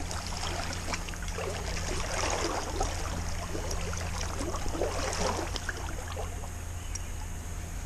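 Stream water running and gurgling, with irregular small gurgles and splashes through the first half or so.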